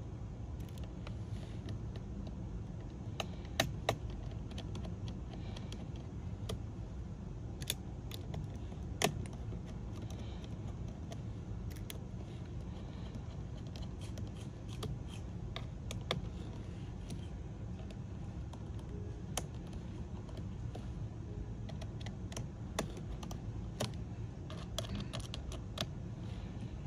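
Sparse small clicks and taps of a precision screwdriver working the screws on a laptop's system board, over a steady low hum. The sharpest clicks come a few seconds in and again about nine seconds in.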